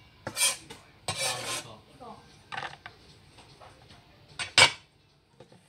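Kitchen clatter from a cleaver and plastic tubs being handled on a counter: several short scrapes and knocks, one longer scrape just after a second in and the loudest knock just over four seconds in.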